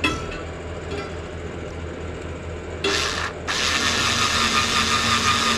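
Bosch mini cordless drill-driver drilling a hole for a drain valve in the steam cannon: a short burst about three seconds in, then running steadily with a motor whine.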